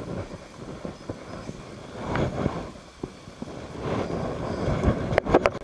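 Wind buffeting the microphone, with rustling handling noise as a carp is unhooked in a landing net on a mat. Near the end comes a quick run of sharp clicks.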